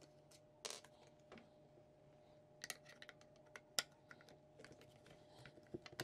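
Faint, scattered clicks and ticks as a screwdriver backs out the screws holding a washer drain pump in its plastic housing, and the plastic parts are handled.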